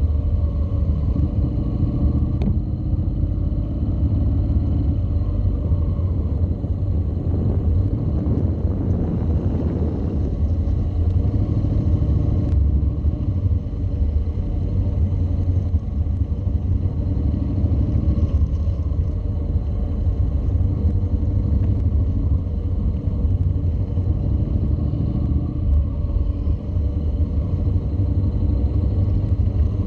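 Honda NC700 motorcycle's parallel-twin engine running at low speed, a steady low rumble.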